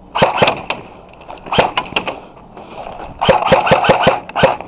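Airsoft guns firing: three bursts of sharp snapping shots, the longest near the end with several shots a second.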